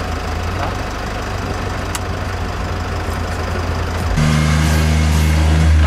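Jeep Wrangler's engine idling with a steady low hum; about four seconds in it gets louder and fuller.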